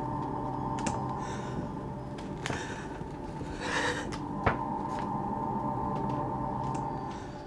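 A sustained, gong-like drone of a tense film score, holding several steady tones, with a few sharp clicks and a brief rustle over it. A single click a little past halfway is the loudest sound.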